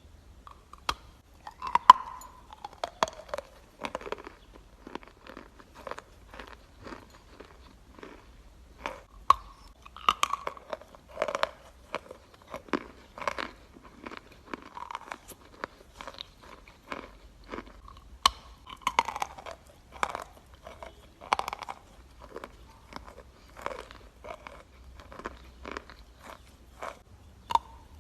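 A person biting and chewing dry, coarse-grained natural chalk (Akbulak chalk) close to the microphone: irregular, sharp, ringing crunches, with louder bites about 2, 10, 19 and 21 seconds in.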